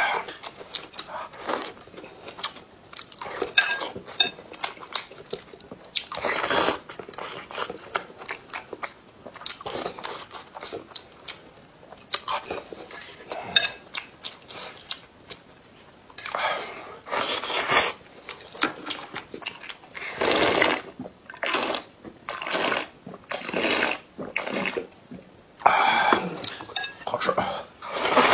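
Close-up eating: chewing and repeated slurping of noodles and broth, with several long hissing slurps bunched in the second half.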